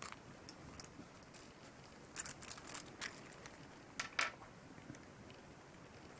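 Small metallic clicks and light taps of a four-screw watch case back being lifted off and handled, scattered irregularly with a small cluster about two seconds in and two sharper clicks about four seconds in.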